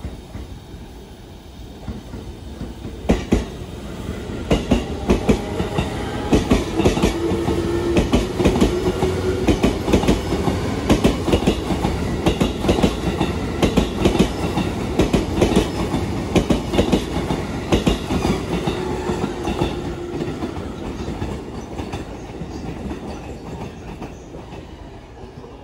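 An orange-striped E233-series Chuo Line commuter train passing close by. Its wheels clack over the rail joints in a long run of sharp knocks under a steady hum. The sound builds over the first few seconds and fades away near the end.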